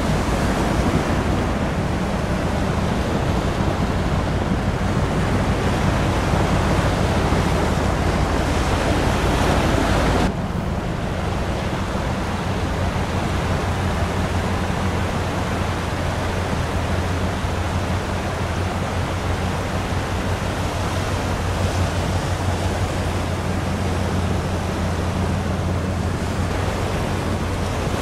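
Steady wind and water noise over a low, even drone from a large container ship's machinery passing close by. About ten seconds in, the sound drops a little and turns duller.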